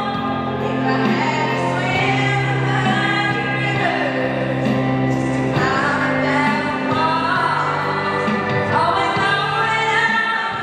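A young girl singing a song into a handheld microphone over recorded backing music with held low notes.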